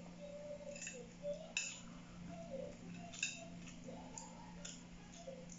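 Faint eating sounds: scattered sharp mouth clicks and smacks as fried chicken and rice eaten by hand are chewed, over a steady low hum.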